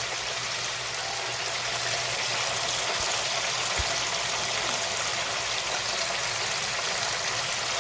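Chicken wings deep frying in hot oil: a steady sizzle.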